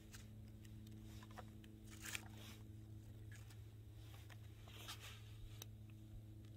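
Faint rustling of dead sticks being moved over a small kindling campfire, with a few scattered sharp crackles, over a faint steady low hum.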